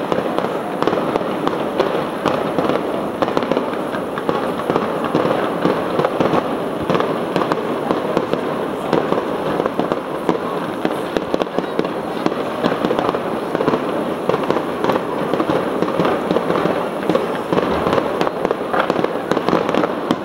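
Fireworks display: a dense, unbroken barrage of bangs and crackles, many reports a second throughout.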